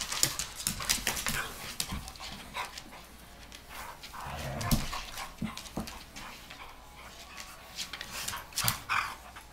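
Two dogs play-fighting: scuffling with many sharp clicks and scrapes, and short dog vocal sounds, the loudest about four and a half seconds in.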